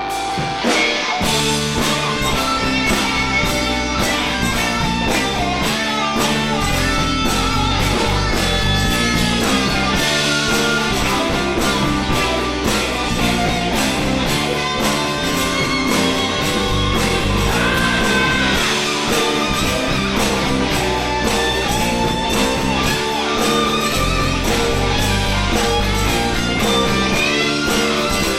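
Rock band playing live: an instrumental passage of electric guitar over a steady drum beat and bass.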